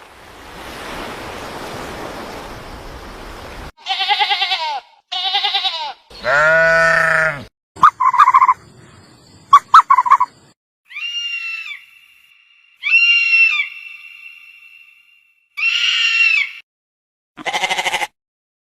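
A hiss of noise for the first few seconds, then a string of separate bleat-like animal calls, each under two seconds long, with a few sharp clicks among them.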